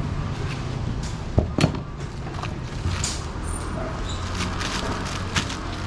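Two sharp knocks about a second and a half in, during cleaver work on a pineapple, then the crinkling of a thin plastic produce bag being opened, over a steady low background rumble.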